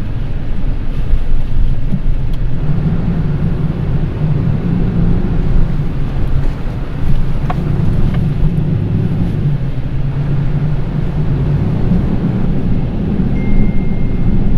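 Mitsubishi Triton pickup's engine running steadily under way, heard from inside the cabin while driving off-road, with a few short knocks.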